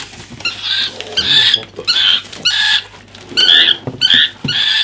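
Cockatiel calling repeatedly: about eight short, shrill calls in quick succession.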